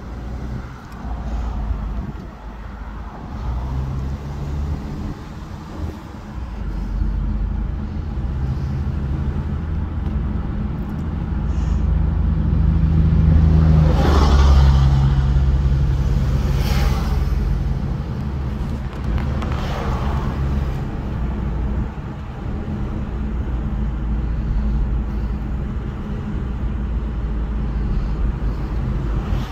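Road and engine noise inside a car cruising on a highway: a steady low rumble that grows louder about halfway through. Three brief whooshing sounds come a few seconds apart in the middle.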